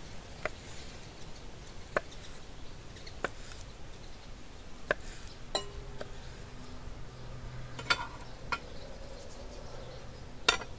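Kitchen utensils clinking against dishes: a handful of sharp, separate clinks spread out over the stretch, the loudest near the end.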